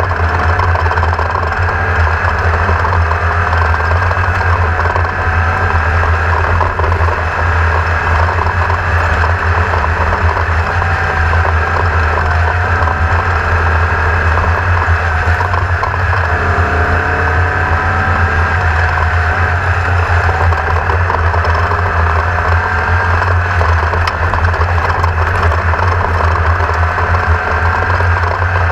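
An engine running steadily, its pitch wavering a little up and down.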